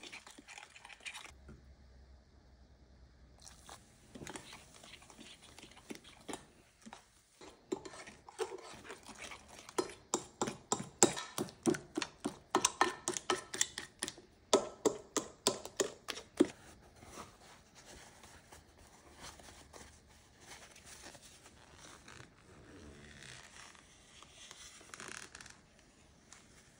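Spatula stirring wet brownie batter in a glass baking dish: quick repeated strokes, about three a second and loudest through the middle, scraping and slapping the batter against the glass, then softer smoothing strokes near the end.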